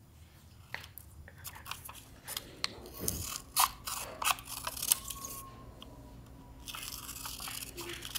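Scissors snipping through photo prints in a run of short, irregular cuts, with a longer stretch of cutting and paper rustle near the end.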